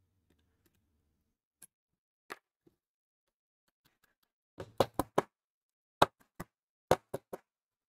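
Plastic Bluetooth speaker housing being handled and pressed together: a few light clicks early on, then clusters of sharp knocks and clacks of hard plastic, about four and a half to five seconds in and again around six to seven seconds.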